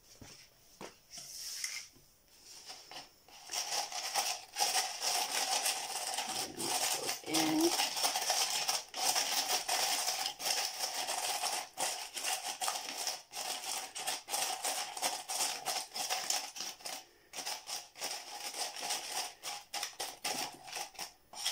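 Crushed glass pieces, coated in glue and mica powder, stirred with a wooden craft stick in a disposable cup: a dense scratching and clinking of glass against the cup and the stick, starting about three seconds in and keeping on.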